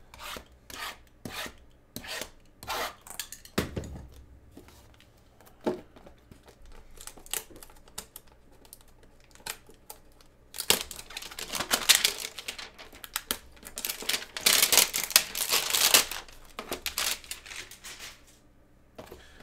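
Cardboard trading-card boxes handled and set down with scattered light knocks and rustles, then a Panini Mosaic hanger box torn open by hand, a dense run of tearing cardboard lasting about five seconds from about ten seconds in.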